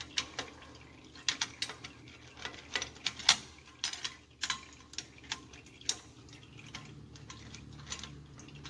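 Irregular light metal clicks and taps, about two a second, from a hand tool working against the nut and lock washer on a bus's rear axle spindle as they are taken off the hub.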